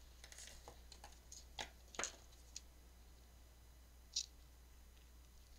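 Near silence with faint handling sounds of a fabric book headband strip being moved over an open book: a few light taps, the clearest about two seconds in, and a short soft rustle about four seconds in.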